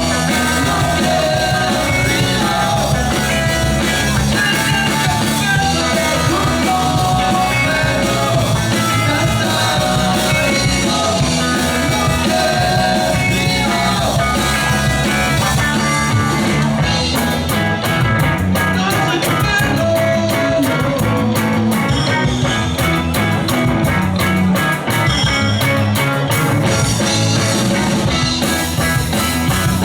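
Live rock band playing a song with a lead vocal, guitars and drums; from about halfway in, sharp, evenly spaced drum strikes stand out in the mix.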